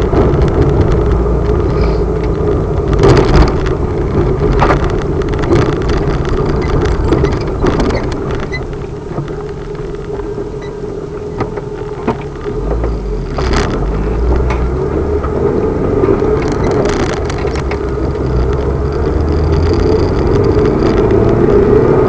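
Engine and road noise from on board a moving vehicle: a steady running drone with scattered knocks and bumps. It eases off a little in the middle and builds again towards the end.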